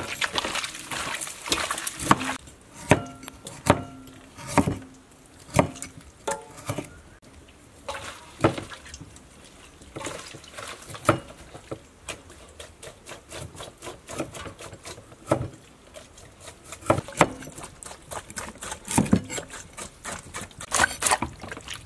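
Irregular knocks and wet squelches of raw pork intestine being kneaded and rubbed with salt by hand in a metal pot, to clean it.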